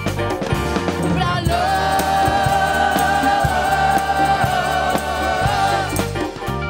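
Live rock band with drum kit, congas and electric guitar playing a steady groove, with a long held note from about a second and a half in, wavering near its end.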